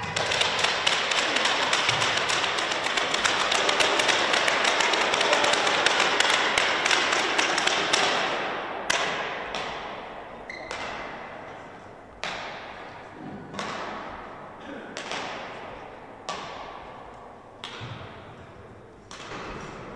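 Clapping in a large sports hall for about eight seconds, dense and loud. It then thins out into separate sharp knocks about every second or so, each echoing in the hall.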